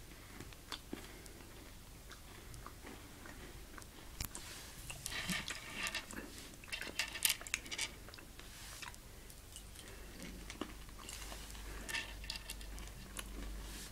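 Dark chocolate M&M's being crunched and chewed, with small clicks of the hard-shelled candies against a wooden tabletop as they are picked up by hand. The crunching and clicks come in scattered bursts, most around the middle and again near the end.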